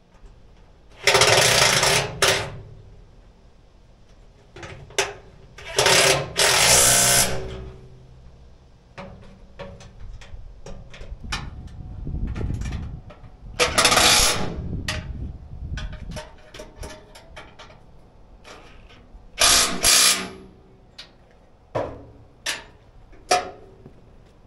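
A handheld power tool run in short bursts of about a second, four main times, while drilling and fastening folding steps onto a steel truck bed. Small clicks and knocks of tools and hardware sound between the bursts.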